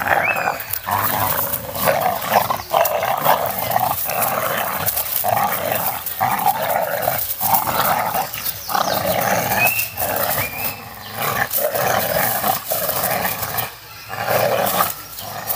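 Two dogs, a pit bull and a Staffordshire terrier, growling in rough play as they wrestle and tug a toy between them, the growls coming in bursts about a second long with short breaks.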